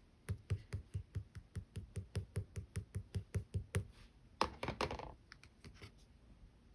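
Slime being pressed and poked by hand: a quick, even run of clicks about five a second, then a louder crackling squish a little after four seconds and a few last clicks.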